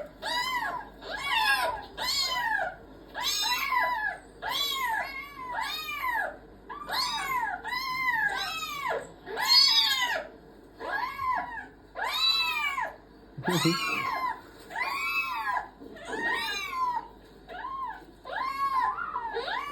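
A recording of kittens meowing, played back through a speaker: an unbroken string of high, arching mews, roughly one to two a second.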